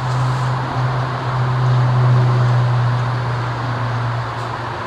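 A steady low drone under a noisy hiss, swelling slightly about two seconds in.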